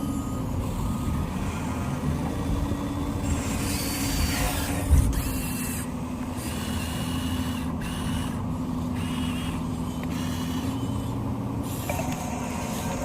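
Remote-control model truck running: a steady low motor hum, a thump about five seconds in, then a string of short hissy bursts.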